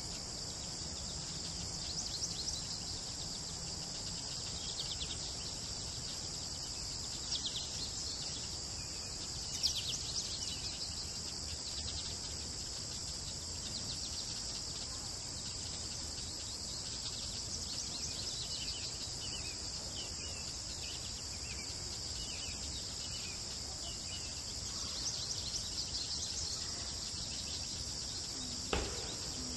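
Steady high-pitched insect chorus, with short bird chirps breaking in over it in a few scattered clusters; a single sharp click near the end.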